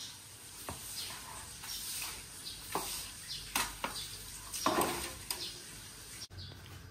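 Broom sweeping a wet concrete floor, pushing dirt into a dustpan in several separate scraping strokes.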